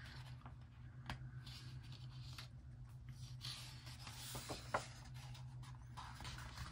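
Soft paper rustling as hands brush across and turn the pages of a paperback coloring book, with the page turn about four seconds in and a couple of faint ticks. A low steady hum runs underneath.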